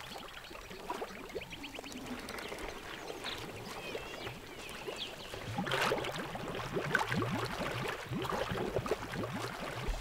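Elephants' trunks skimming and sucking water from the surface of a pool: soft slurping, dripping and small splashes that grow busier and louder about halfway through. A quick chirping trill and a few small animal chirps sound early on.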